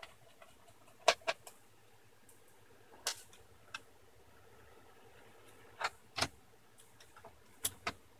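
Light clicks and taps as a screwdriver works the hard disk's retaining screw and the drive is slid and lifted out of a laptop's drive bay. There are pairs of sharp clicks about a second in, around six seconds and near the end, with single ones around three seconds.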